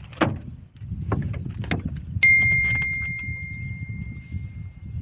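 A single bright bell ding about two seconds in, a clear note that rings on and slowly fades: the notification-bell sound effect of a subscribe-button overlay. It sits over a low rumble and a few short clicks and knocks.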